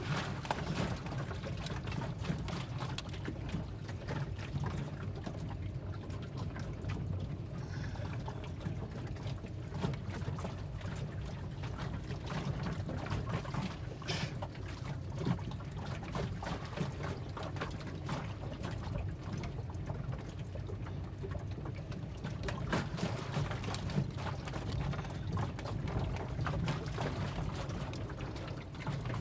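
Car driving over a rough road, heard from inside: a steady low rumble with frequent knocks and rattles.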